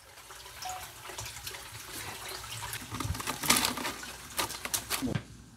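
Water sloshing and splashing as a hand net is swept through a tank of live shrimp. About three and a half seconds in comes a louder run of splashes and sharp clicks and drips as the netted shrimp are tipped into a plastic basket.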